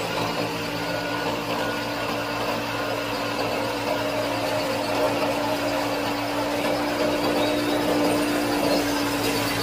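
Small electric motor of a miniature belt-driven wheat thresher model running steadily: an even whirring hum with one steady tone, as the machine threshes grain.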